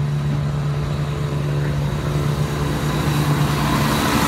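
Southern Class 171 Turbostar diesel multiple unit passing close by: a steady low diesel engine drone, with wheel and rail noise swelling near the end as the train draws alongside.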